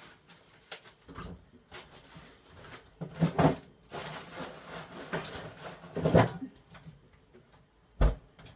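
Things being handled and moved about in a small kitchen: uneven knocking and rustling, with a sharp knock near the end.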